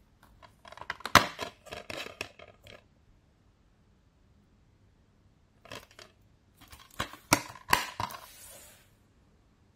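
Plastic DVD keep case being handled: a run of clicks and rattles as it is opened, then after a pause more clicks with two sharp snaps as it is shut, ending in a brief rustle.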